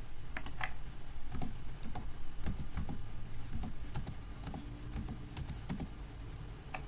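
Computer keyboard typing: irregular keystrokes as numbers are entered into form fields, thinning out after about six seconds.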